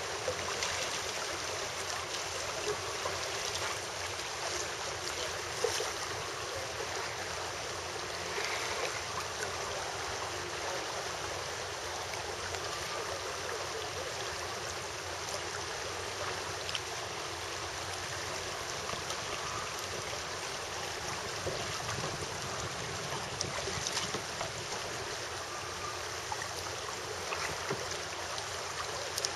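Steady rush of a shallow river's current, with a few faint clicks scattered through it.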